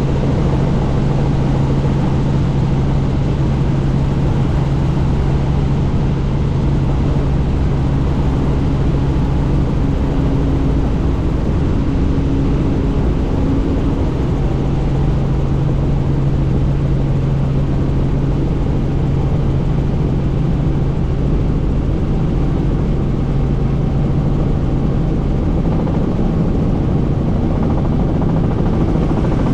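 Helicopter in flight heard from on board: steady rotor and engine noise with a constant low hum.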